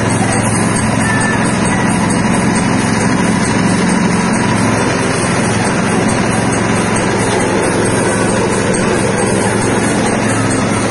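Soybean dehulling machine running steadily, a loud even mechanical drone from its motor and hulling mechanism as it splits soybeans and strips off their skins.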